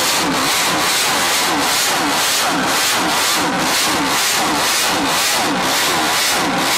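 1966 Honda RC149's 125 cc air-cooled five-cylinder four-stroke racing engine, running loud on a stand. The throttle is blipped about once a second, so the pitch falls and climbs again with each blip.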